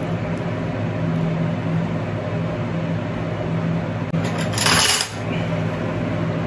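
Metal kitchen tongs lifting and dropping creamy linguine from a nonstick pan onto a plate, with one short metal clatter of the tongs about four and a half seconds in. A steady low hum runs underneath.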